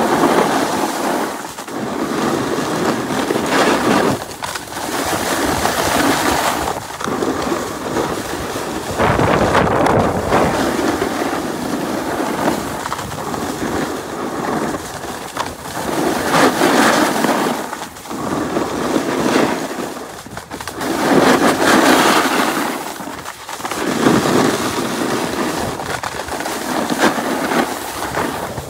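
A snowboard riding down a groomed slope: its base and edges scrape and hiss over packed snow, the noise swelling and fading every few seconds, with wind rushing over the microphone.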